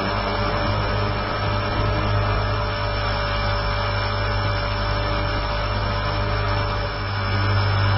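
Align T-Rex 450 electric RC helicopter in flight, recorded from a camera mounted on the airframe: a steady electric-motor and gear whine over a low rotor buzz.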